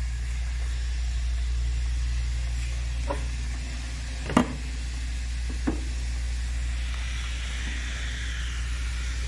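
Steady low rumble from a lit gas stove burner heating a pot of boiling water. Three short knocks and clinks of cookware come through it, the loudest about four and a half seconds in, as a glass pot lid is picked up.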